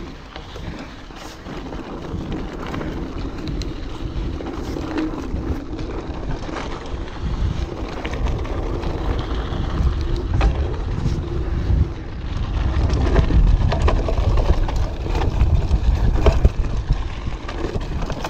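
Wind rushing over an action camera's microphone while an Orbea Alma mountain bike rattles and clatters over a rocky trail. The rumble and rattling grow louder from about halfway in.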